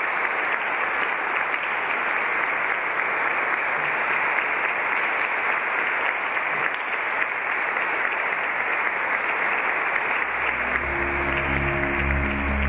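Congregation applauding with steady, sustained clapping. About ten seconds in, music with low sustained notes begins beneath the applause.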